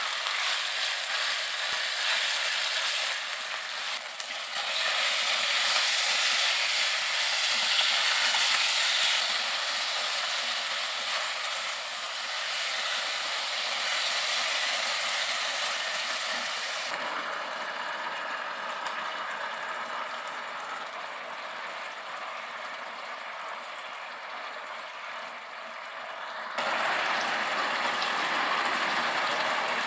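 Sliced beef sizzling in hot oil in a wok as it is stir-fried. About two-thirds of the way through the sizzle drops to a quieter bubbling after hot water goes in, and near the end it jumps louder again as sliced pickled green mustard is added.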